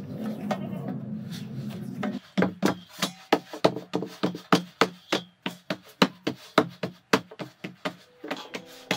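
Palms patting a ball of bhakri dough flat in a wide steel plate: quick regular slaps about three a second, each with a short ring from the steel, after about two seconds of dense rubbing and pressing as the dough is kneaded. The patting pauses briefly near the end, then starts again.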